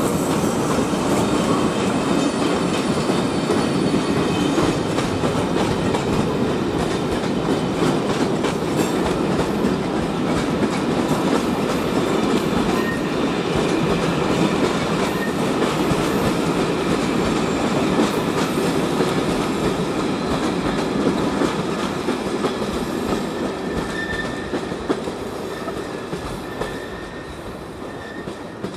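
Passenger train of Czech Railways coaches rolling past and away through station pointwork. The steady rumble of wheels carries a run of clicking clatter over rail joints and points, with a few brief faint wheel squeals. It fades over the last several seconds as the train recedes.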